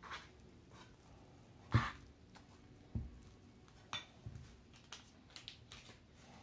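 Metal spoon knocking and clinking against a frying pan as flour and milk batter is stirred: a handful of scattered knocks, the loudest about two seconds in, a duller thump at three seconds and a short ringing clink at four, then light ticks.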